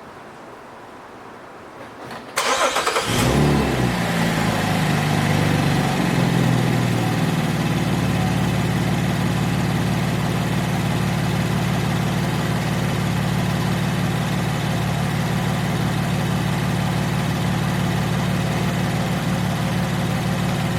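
Chevrolet Traverse 3.6 L V6 starting about two seconds in, running at a raised fast idle for a few seconds, then settling to a steady idle about eight seconds in. The idle carries what is taken for a slight misfire knock, typical of the random misfire on cylinders 1, 3 and 5.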